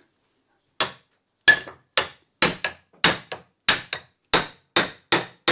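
Steel hammer blows on the end of a PowerSpout hydro turbine shaft, driving it out through its old bearings in the bearing block, which is supported in a vise. The sharp metallic strikes start about a second in and come roughly two a second, about ten in all, each ringing briefly.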